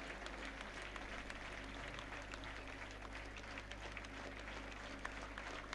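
Faint, scattered hand-clapping from a seated audience, a few claps every second, over a steady low electrical hum.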